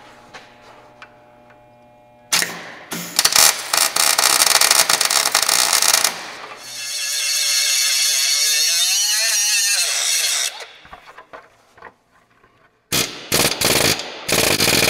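Pneumatic air hammer fitted with a pin punch, hammering rapidly at the seized bolts of a Caterpillar 3406A's turbocharger turbine casing. It runs in long bursts from about two seconds in, evens out into a smoother, steadier buzz in the middle, stops briefly near twelve seconds, then starts hammering again.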